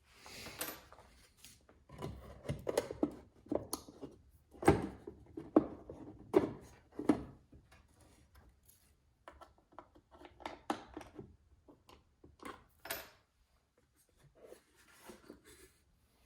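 Antique 1930s Hawkeye matchbook vending machine being worked with a homemade key: irregular clicks, knocks and scrapes of its sliding plate and mechanism, loudest in a run of sharp clacks about five to seven seconds in, then sparser.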